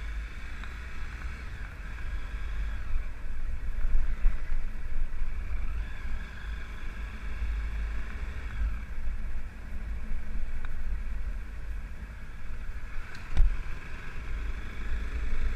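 Low, uneven rumble of a moving vehicle with wind buffeting the microphone, and one sharp knock about thirteen seconds in.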